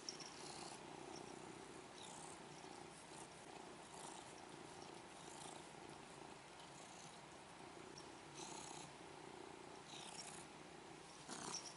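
A domestic cat purring softly and steadily.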